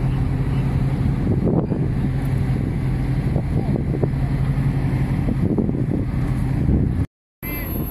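Crawler crane's diesel engine running steadily with a constant low drone, with wind buffeting the microphone. The sound cuts out abruptly for a moment near the end.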